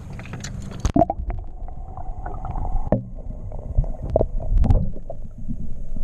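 Lake water at the surface, then, about a second in, heard from under the water: a muffled low gurgling and sloshing with dull knocks, the treble almost gone.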